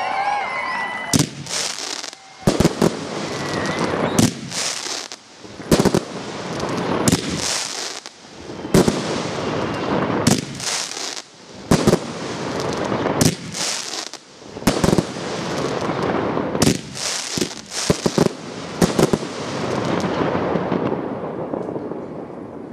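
Large aerial fireworks display bursting: sharp bangs roughly once a second over a continuous crackling hiss of burning stars. The bangs stop and the crackle fades away near the end.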